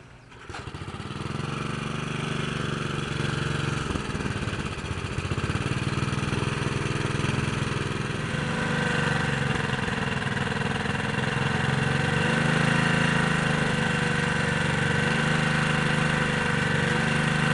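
Small GEET-fitted slave engine running steadily. It comes in about half a second in, and its speed wavers slightly partway through.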